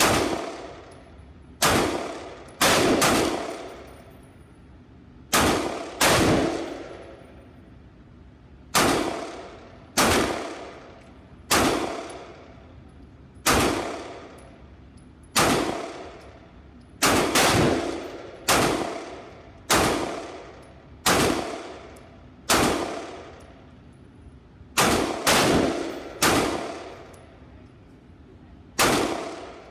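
About twenty shots from a 9mm semi-automatic handgun firing 124-grain FMJ rounds, fired one at a time with a second or two between them and now and then in quick pairs. Each shot rings on for about a second in the echoing indoor range.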